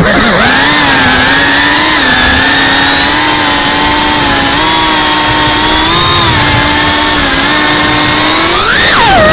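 FPV whoop drone's electric motors and propellers whining steadily in cruise, with small wobbles in pitch as the throttle shifts. The pitch dips right at the start, then climbs sharply just before the end and drops back.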